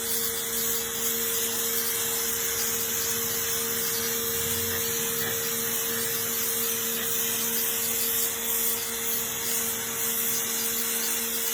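Black+Decker BXPW1600E electric pressure washer running: a steady motor-and-pump hum under the hiss of the water jet spraying.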